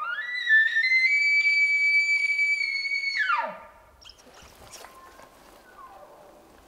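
Bull elk bugling during the rut: a high whistling note held for about two seconds, then dropping steeply in pitch and breaking off.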